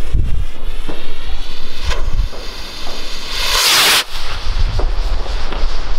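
A Nico 'Ghost' skyrocket's fuse burning, then the rocket lifting off with a loud rushing hiss about three and a half seconds in that cuts off sharply about half a second later. Low rumbles of wind on the microphone come and go.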